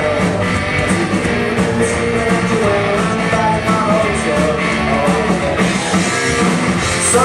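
Live rock band playing at full volume: electric guitar, bass and drums with crashing cymbals, and a singer's voice over them.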